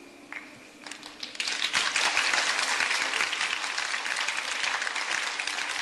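Audience applause breaking out about a second in and quickly building to loud, steady clapping, as the last held note of the ballet music fades away.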